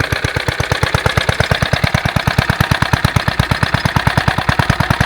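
Small Suffolk four-stroke engine idling steadily, an even rapid beat of firing strokes. It is running well after a rebuild in which its valves were lapped to cure a total lack of compression.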